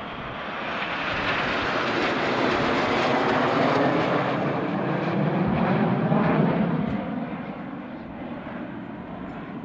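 Five BAE Hawk T1 jets' Rolls-Royce Adour turbofans passing overhead in formation: a loud jet rush that swells over the first couple of seconds, peaks in the middle, then fades, dropping in pitch as the formation moves away.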